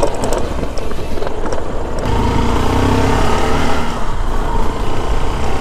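Honda SP 125's single-cylinder engine running as the motorcycle is ridden along a dirt track, with rumbling wind and road noise. The engine and road sound grow fuller about two seconds in.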